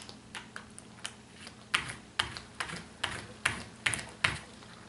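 A series of short plastic clicks as the Bandai Pac-Man spinning top is revved up on its toothed launcher strip. They start faint and become stronger about halfway through, at roughly two clicks a second.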